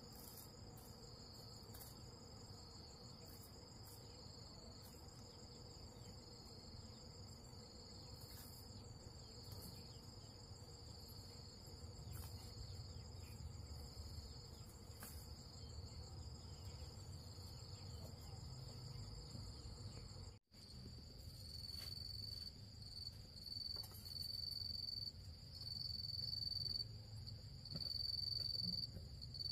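Insects trilling in a steady high chorus over a low background rumble. About twenty seconds in the sound cuts out briefly, and after that the trill is louder and comes in on-and-off pulses of a second or so.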